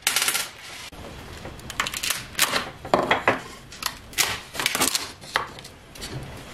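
Irregular clicks, knocks and scraping of hard plastic against wood as a 3D-printed mold holding a cast rubber shoe sole is pried and lifted out of a wooden jig.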